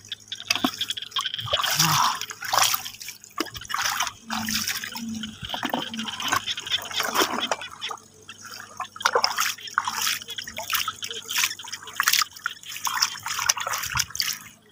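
Shallow water splashing and dripping in irregular bursts, as bare feet wade and hands scoop up water and shake it off.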